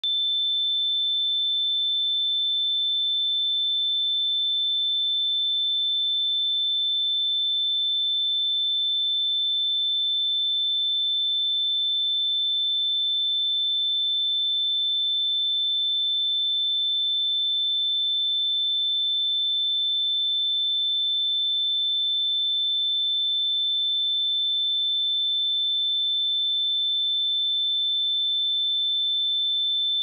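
A pure 3536 Hz sine-wave test tone, a single high-pitched steady whistle-like pitch at constant level, used for checking speakers and headphones.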